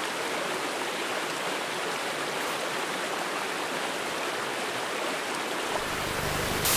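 A shallow rocky stream running over stones, a steady rush of water. Near the end a low rumble comes in, and a sharp click sounds just before the close.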